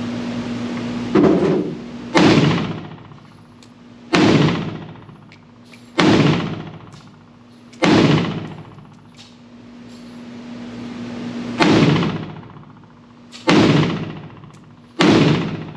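Pioneer Arms Hellpup AK-pattern pistol in 7.62x39mm firing eight single shots at an unhurried, uneven pace, each shot followed by a long echoing decay.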